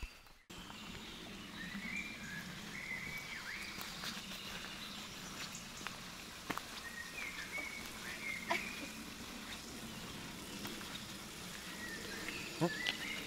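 Birds chirping and calling in short, gliding phrases over a steady outdoor hiss, with a few sharp ticks.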